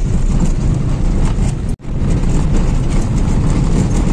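Steady low rumble of a vehicle on the move, engine and road noise, which cuts out for an instant a little under two seconds in.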